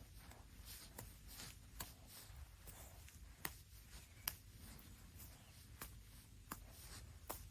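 Near silence: room tone with a low hum, broken by a handful of faint, scattered clicks and light rustling.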